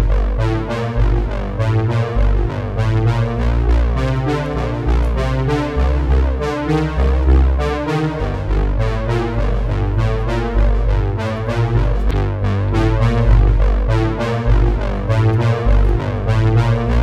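Background music: an electronic track with synthesizer keys over a strong bass line and a steady beat.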